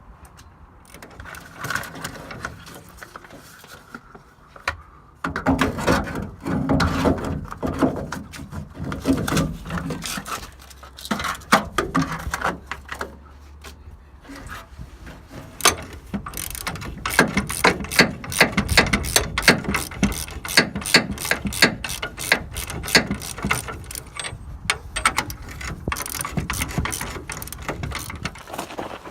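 Ratchet wrench clicking in quick runs as the leaf-spring U-bolt nuts are backed off, sparser at first and fast and continuous through the second half.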